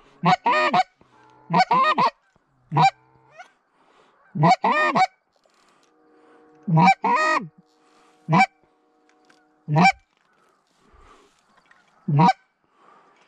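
Canada goose honks and clucks, loud and close, in short bursts of one to three notes every second or two.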